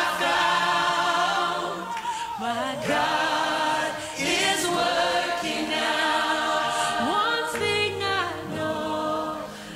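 Choir singing a sacred piece in sustained, shifting chords, fading down near the end.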